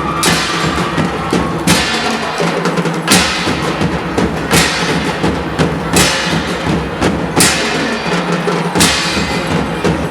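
Loud dance music with heavy drums and bass, crash-like hits landing about every one and a half seconds.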